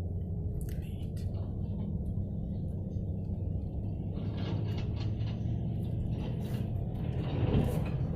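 Steady low rumble of a running vehicle engine. Scattered clattering joins from about halfway through, and there is a louder surge near the end.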